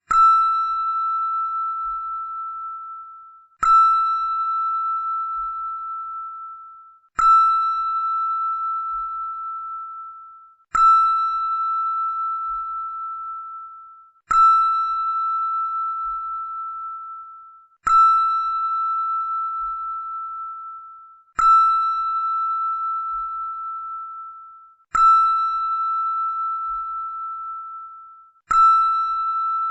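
A bell struck nine times at an even pace, about once every three and a half seconds. Each strike rings a single clear, high tone that fades away slowly before the next.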